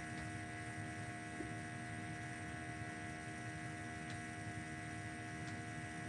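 Steady electrical hum made of several fixed tones over a faint hiss, with a few faint ticks.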